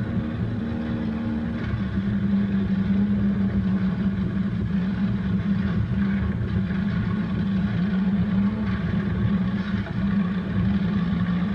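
Dune buggy engine running under steady load at speed, a continuous drone that holds nearly one pitch, with a rough low rumble beneath it from driving over the dirt trail.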